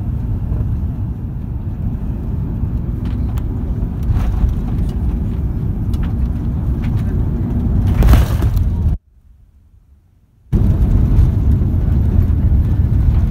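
Cabin noise of an Airbus A340-300 touching down and rolling out on the runway: a steady low rumble of engines, airflow and wheels that grows louder about four seconds in, with a louder rush near eight seconds. The sound then cuts out for about a second and a half before the loud rumble returns.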